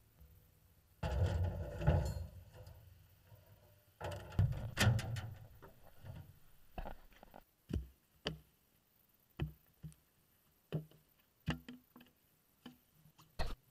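Handling noise from a wooden board and plastic containers: two stretches of scraping and rustling as the board is dragged out of a pickup truck's metal bed, then a string of sharp, irregular knocks and taps as the pieces are set down to build a ramp.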